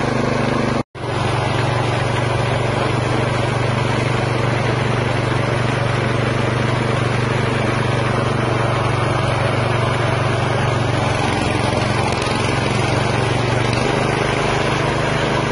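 Chicken-meat grinding machine running steadily under load as chicken fillet is pushed through it, a constant low machine hum. The sound cuts out for an instant about a second in.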